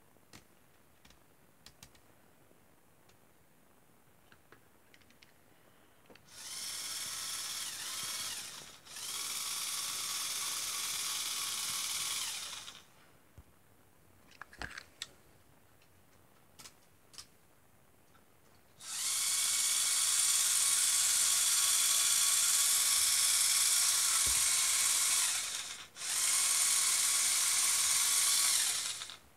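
Small electric motors and plastic gears of a Lego Technic halftrack whirring in four steady runs, two short ones and then a longer pair, each stopping and starting again after a brief break. Light clicks sound between the runs.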